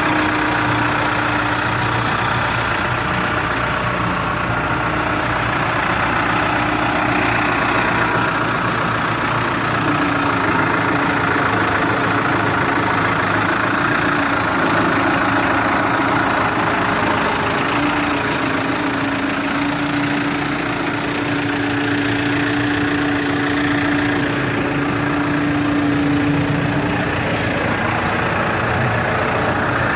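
New Holland B95 loader backhoe's diesel engine running steadily, with a droning tone that dips slightly in pitch twice.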